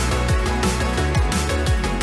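Electronic background music with a steady kick-drum beat, about three beats a second.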